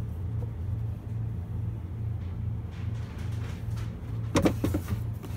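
A steady low rumbling hum with an even pulse, and a brief clatter of handling noise about four and a half seconds in.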